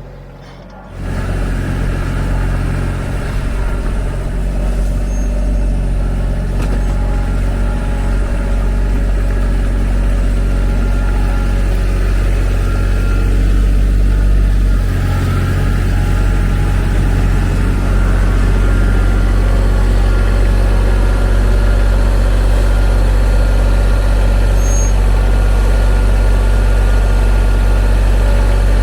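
TYM T313 sub-compact tractor's diesel engine running steadily, starting about a second in, with a brief dip about halfway through before settling slightly louder.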